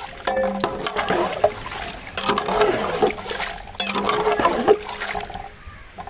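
A spatula stirring chopped cassava pieces in a pot of water, the water sloshing and the pieces and spatula scraping against the pot, in three bouts of about a second each.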